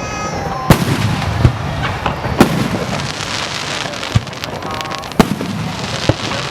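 Fireworks bursting: several sharp, loud bangs, the strongest about a second in, near two and a half seconds and just past five seconds, with smaller pops between them over a continuous noisy wash.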